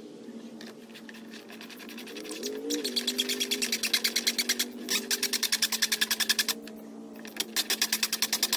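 Cordless impact driver spinning up and hammering rapidly as it drives lag bolts, in two runs: one starting about two seconds in, then a short pause, and another near the end.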